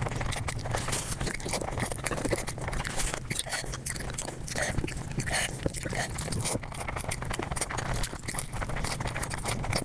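Close-miked mukbang eating sounds sped up five times: rapid crunching and chewing, a dense unbroken stream of sharp clicks.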